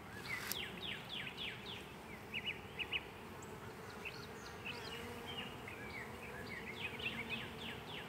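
Honeybees buzzing over an open hive, a steady low hum. Short high chirps are scattered over it, the loudest a little over halfway through the first half.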